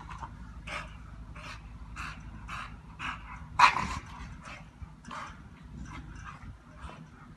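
A bully-breed puppy making short huffing, grunting vocal bursts about twice a second as it leaps at a stick, with one loud bark about three and a half seconds in.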